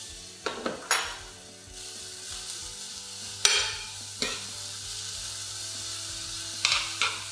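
Sliced vegetables, with mushrooms just added, sizzling as they are stir-fried in a hot frying pan. There are sharp clacks against the pan a few times, in small clusters near the start, in the middle and near the end.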